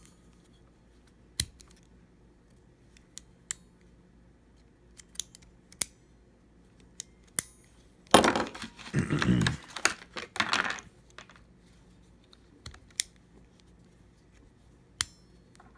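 Small metal screwdriver bits and sockets from a mini tool set clicking as they are handled, with a burst of rattling and rustling about eight seconds in.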